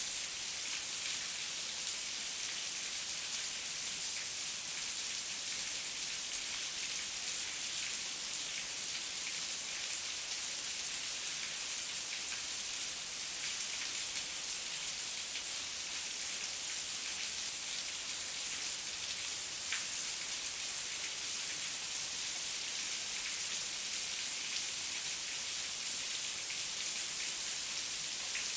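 Heavy rain falling steadily, a dense hiss of drops hitting surfaces with faint scattered patters.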